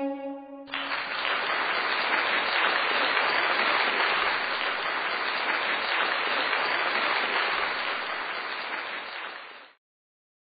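The last note of violin-led music ends under a second in. Applause follows: steady clapping that fades out and stops just before the end.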